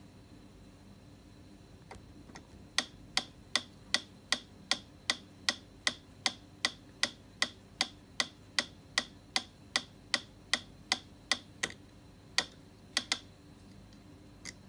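Mechanical pendulum metronome ticking steadily, about two and a half sharp clicks a second, starting about three seconds in. Near the end the steady beat breaks off into a few irregular clicks while a kitten paws at the pendulum.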